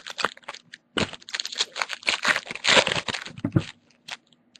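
Foil trading-card pack wrappers crinkling and tearing as packs are ripped open by hand, a dense crackling run lasting about three seconds.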